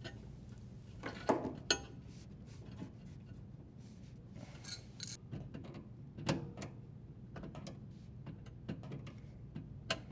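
Irregular metallic clicks, clinks and knocks, a few louder than the rest, as a water supply line fitting is threaded and tightened onto a dishwasher's water inlet valve.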